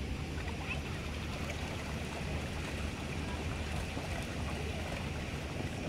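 Water churning and splashing from the hand-cranked paddle wheels of small plastic paddle boats, steady throughout, under a constant low rumble of wind on the microphone.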